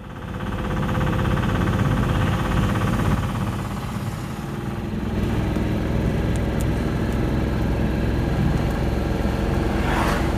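Tata Ace Zip mini truck's small diesel engine running while driving, heard from inside the cab. It comes up over the first second and then holds a steady drone with road rumble.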